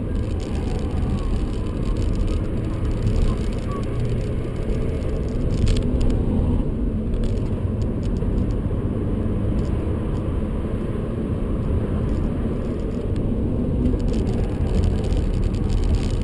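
Steady in-cabin noise of a BMW 125d at speed: its four-cylinder turbodiesel pulling under a heavy, even road and tyre rumble, heard from inside the car.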